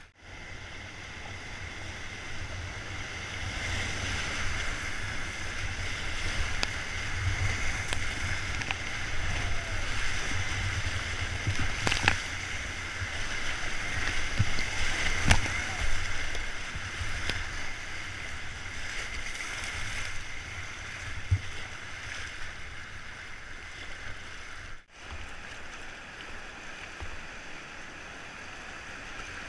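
Whitewater rapids rushing and splashing around a kayak, heard up close from the paddler's position, with a couple of sharp splashes about twelve and fifteen seconds in. The sound drops out for an instant near the end.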